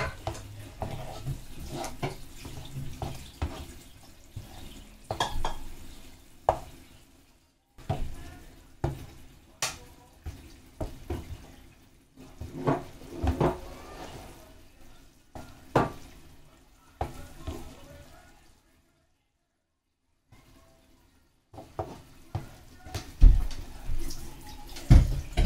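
Kitchen utensils and dishes clattering: a run of uneven knocks and clinks, stopping for a few seconds past the middle, with two heavier thumps near the end.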